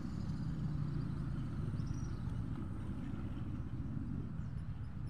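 Steady low rumble of distant road traffic, with a few faint high chirps above it.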